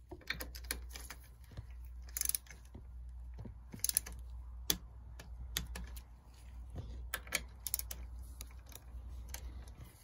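Irregular metallic clicks and short runs of rapid ticks from a torque wrench with a hex bit tightening the pinch bolts of a Shimano XT crank arm, over a steady low hum.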